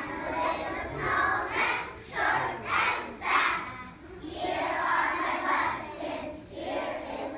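A large group of young children singing together in unison, in short phrases with a few longer held notes near the end.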